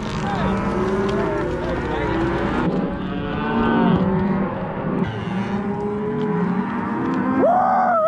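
A herd of beef cows and calves mooing and bawling over one another, with one loud bawl near the end.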